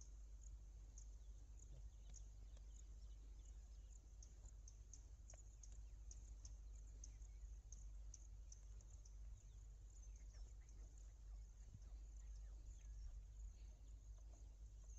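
Near silence: a steady low rumble under faint, irregular high chirps, several a second.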